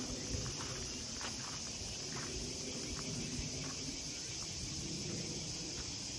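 A steady, high-pitched chorus of insects, with a few soft footsteps on gravel about once a second.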